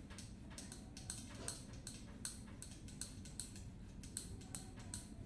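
Faint, irregular light clicks and ticks, a few a second: hands massaging oiled skin on both sides of a knee.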